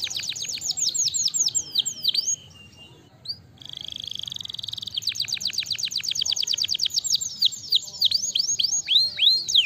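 Domestic canary singing: rapid trills of high, quickly falling notes, a short break about two and a half seconds in, then a steady trill followed by more fast rolling trills that slow toward the end.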